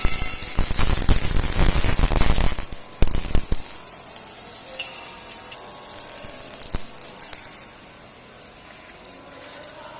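Electric arc welding crackling and sizzling for about two and a half seconds, a short burst of arc just after, then a fainter on-and-off hiss that dies away.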